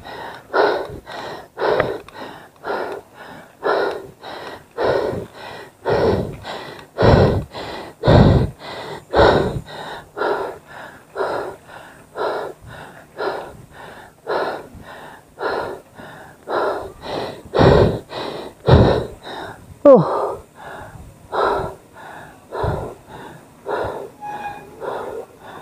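A cyclist's hard, rhythmic panting on the microphone, about two breaths a second, from the effort of pedalling up a steep climb. One breath about twenty seconds in slides down in pitch.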